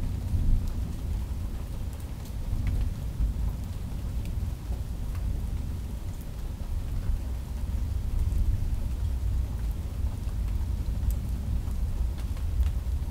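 Thunderstorm rain falling steadily, with scattered sharp raindrop ticks over a continuous deep rumble of distant thunder.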